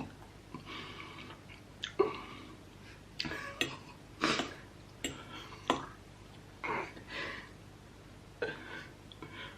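Mouth sounds of someone eating spicy noodles: a series of short slurps and smacks with a few sharp clicks, about a dozen, scattered with brief pauses between them.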